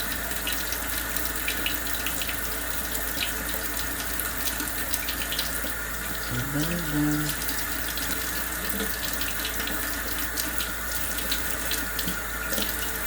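Kitchen tap running steadily into a sink, with scattered light clicks over the flowing water.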